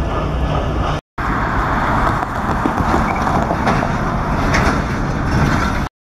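A freight train of tank cars rolling by with a low steady hum, then, after a brief silent cut, a steady outdoor rumble of engines and road traffic. A second short silent cut comes near the end.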